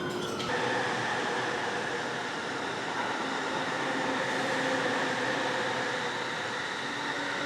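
Steady running noise of a commuter train at a station platform, an even rush with a steady hum of several tones, starting abruptly about half a second in.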